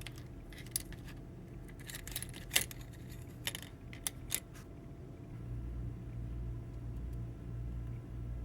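Light metallic clicks and clinks, about a dozen, scattered through the first four seconds or so, then a low steady hum sets in about five seconds in.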